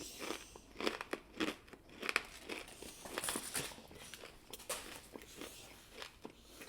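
Crispy fried chicken being bitten and chewed close to the microphone: a run of irregular crisp crunches from the breading, thinning out after about four seconds into softer chewing.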